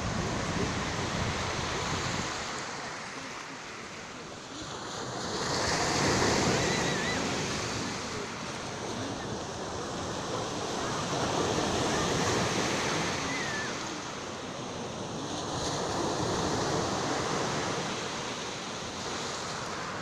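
Sea surf breaking and washing up over a pebble beach, swelling and ebbing about every five or six seconds. Wind rumbles on the microphone for the first couple of seconds.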